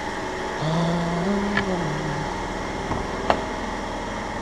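Steady workshop background hum. A brief low hummed voice rises and falls in the first couple of seconds, then come a light click and a sharper click about three seconds in, as a car door is handled.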